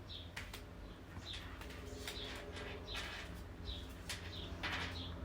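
Tarot cards being handled, with a few soft clicks as cards are moved, while a small bird in the background gives short high chirps about every second.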